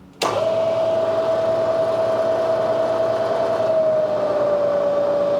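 Metal lathe switched on in low range, its motor and gearing starting suddenly and running steadily with a whine that drops slightly in pitch about four seconds in, turning slowly for power tapping a 1/4-20 hole.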